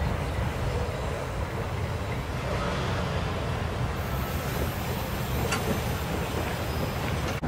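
Steady low rumble of a freight train moving away down the line, with road vehicles beginning to drive across the tracks once it has passed.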